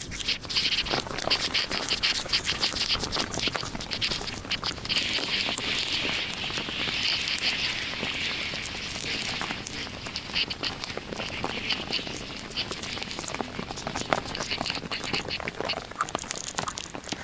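Heavy rain falling on a car's roof and windshield: a steady hiss crowded with many small, sharp drop hits, which turns denser and smoother for a few seconds in the middle.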